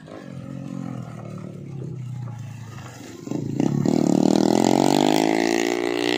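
Engine of a homemade trail motorbike loaded with a sack of unhulled rice, riding past on a dirt track. It is fainter at first, then gets much louder about three and a half seconds in as the bike comes close, its engine note rising.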